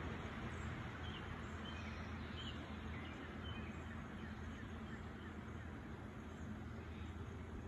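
Background ambience: a steady low rumble and hiss, with faint short bird chirps about once a second.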